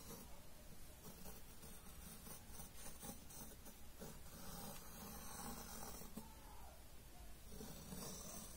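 Faint scratching of a compass's pencil on paper as it swings a circle, over low room noise.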